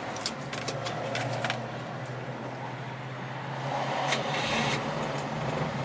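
The rear-mounted four-cylinder engine of a 1992 Subaru Sambar kei truck, heard from inside the cab. It starts right up from cold with a few clicks and settles into a steady idle.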